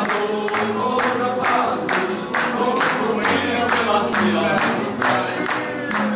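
A group of people singing together while clapping in a steady rhythm, about two to three claps a second.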